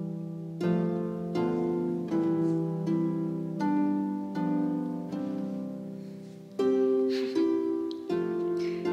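Background music of slow plucked-string notes, each struck and fading away, about one every three-quarters of a second.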